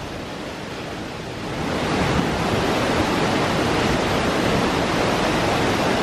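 Steady rushing roar of a very tall waterfall plunging into its pool. It swells louder about a second and a half in, then holds steady.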